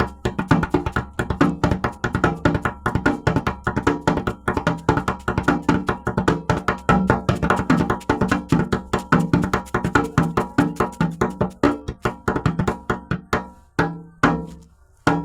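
Instrumental music with fast, busy percussion of wood-block-like strikes over steady pitched notes. Near the end it thins out to a few separate hits.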